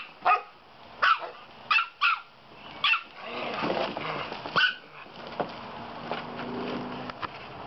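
Dogs at play: about six sharp, high barks in the first five seconds, then a steadier, lower growl.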